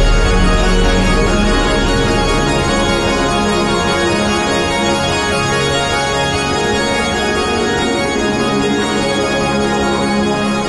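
Background music of sustained, steady keyboard chords, with a deep low note during the first couple of seconds.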